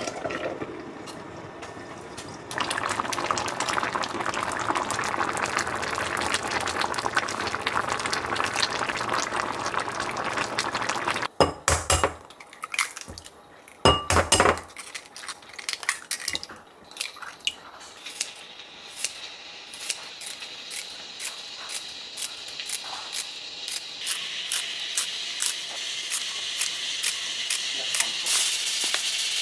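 A steady hiss, then an egg cracked against the rim of a glass measuring cup with a few sharp knocks, then kitchen scissors snipping again and again as greens are cut into the cup.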